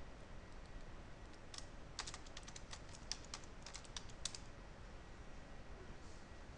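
Typing on a computer keyboard: a quick run of keystrokes starting about two seconds in and lasting about two seconds, with a few scattered key clicks before it.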